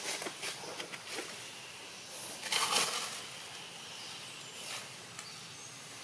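Outdoor ambience with a few short rustles and clicks, the loudest a brief rustle about two and a half seconds in.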